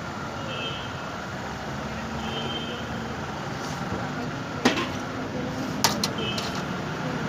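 Busy street-stall din of traffic and voices, with two sharp clinks a little over a second apart about two-thirds of the way through.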